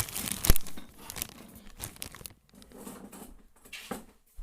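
Plastic bags crinkling and rustling as they are shuffled by hand, with a sharp knock about half a second in. The rustling turns sparser and quieter after about two seconds.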